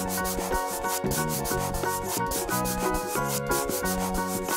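A coloring-in sound effect of rapid, scratchy rubbing strokes, several a second, over a light background tune with held notes.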